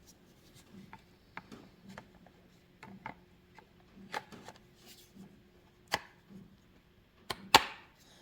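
Cordless drill and battery pack being handled: scattered light plastic clicks and knocks, with two sharper clicks near the end.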